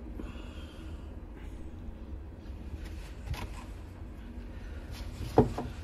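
Faint handling noise from white PVC drain fittings being held and fitted together by hand: a few light clicks and rubs over a low steady hum.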